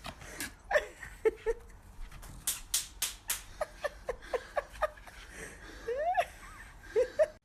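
A person laughing in short repeated bursts, with several sharp clicks about halfway through.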